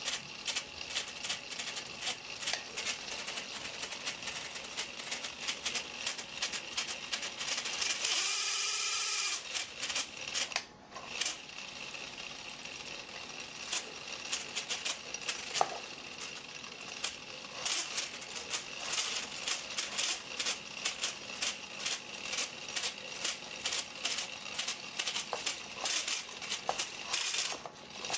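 LEGO Technic car's motor-driven V8 piston engine and automatic clutch running, plastic parts clattering rapidly over a steady whine. About eight seconds in it runs smoother and louder for a moment with a rising pitch, then drops off briefly before the clatter resumes.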